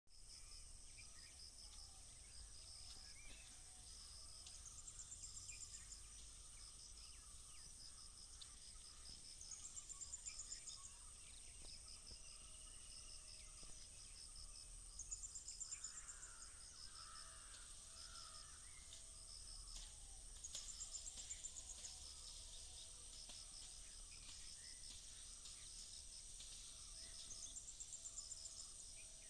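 Faint field ambience: a steady high insect drone, with a chirping trill that swells about every five seconds and a few bird calls around the middle.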